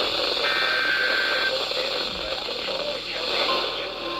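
NOAA Weather Radio heard through a receiver at the start of a new alert: a rough, hissy signal with a short high tone, then the steady weather-radio warning alarm tone at about 1050 Hz starts about three and a half seconds in, signalling that an alert is about to be read.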